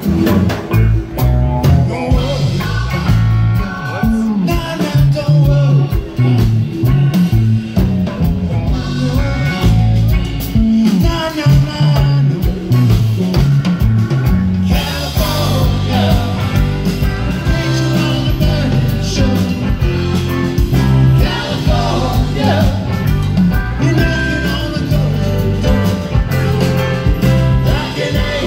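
Live rock band playing in concert, amplified: drum kit, electric guitars and keyboard, with a sung vocal over it.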